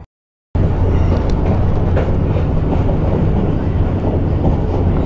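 Passenger train running on the rails, heard from aboard a carriage: a steady loud rumble of wheels and carriages. The rumble cuts in suddenly about half a second in, after a brief silence.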